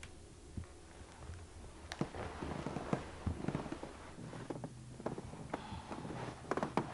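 Duvet rustling as a person climbs out of bed, with a few sharp knocks and taps. The knocks come about two seconds in and in a quick cluster near the end.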